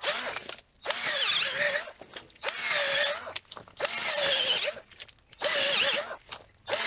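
Cordless battery drill spinning a homemade soil auger into the ground, run in about six bursts of roughly a second each with short pauses between. The motor's whine wavers in pitch as the auger bites into the soil and throws out dirt.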